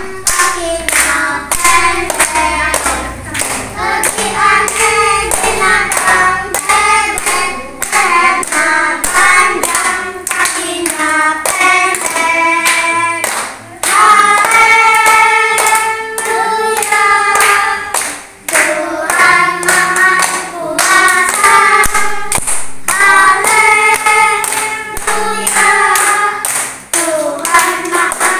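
A group of children singing a song together while clapping their hands in time.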